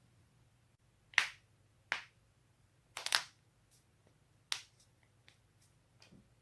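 Human joints cracking: a handful of sharp, dry pops about a second apart, two of them close together near the middle, followed by a few fainter clicks.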